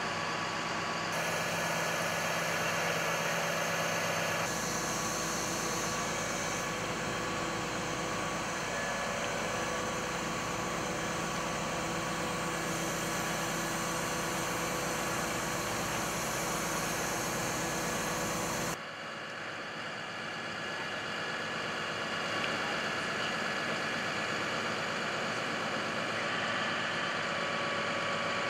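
Versalift bucket truck's engine and hydraulic system running steadily while the boom is lowered, a constant hum with a few steady whining tones. The sound shifts abruptly a few times.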